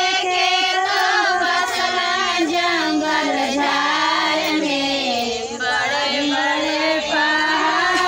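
A group of women singing a devotional song together, several voices on one melody, held notes sliding up and down without a real break.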